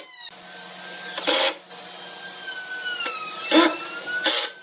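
Small handheld rotary tool running with a motor whine whose pitch wanders up and down as it works into wood. Three short, louder rasping bursts come as it bites: one about a second in and two near the end.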